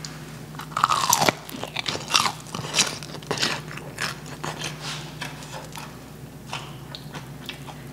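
Someone bites into a piece of crisp, double-fried chicken karaage and chews it. The crust crunches sharply, quick and dense at first, then thinning out toward the end.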